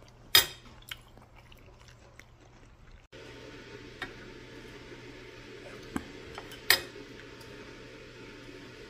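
Metal spoon clinking against a ceramic plate of rice while eating: two sharp clinks about six seconds apart, with a few lighter taps between. A steady background hiss comes in about three seconds in.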